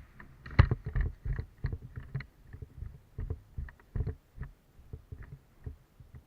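A run of irregular light knocks and thuds, about two or three a second, growing fainter near the end.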